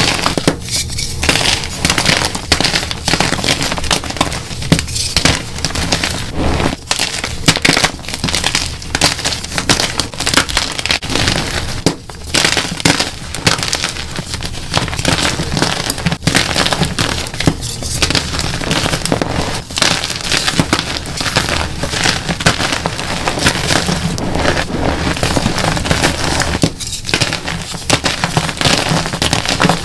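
Dyed gym chalk blocks crushed and crumbled by hand, making a dense, continuous crunching and crackling as they break into flakes and powder.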